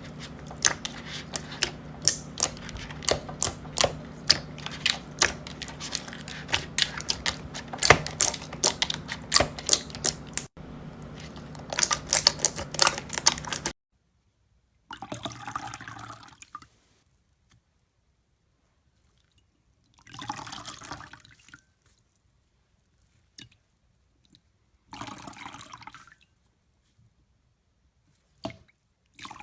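Slime being squeezed and worked by hand: for about the first half, rapid crisp clicks and pops. Then, after a sudden cut, a few short wet squelches several seconds apart.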